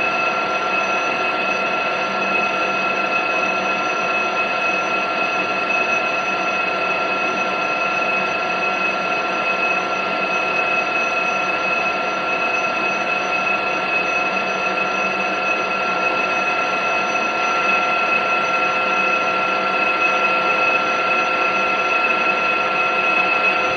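Metal lathe running steadily while turning a small step on the end of a metal shaft: a steady high whine from the machine over the noise of the cut.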